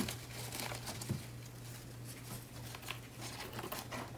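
Faint rustling and a few light taps and clicks as decorations are handled and moved, over a steady low hum.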